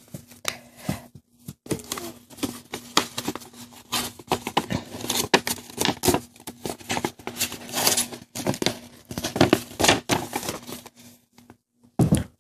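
A sheet of paper being folded and creased by hand, with irregular crinkling and rustling and sharp swishes as the folds are pressed. Near the end there is a dull thump as the folded paper airplane is pressed flat against the table.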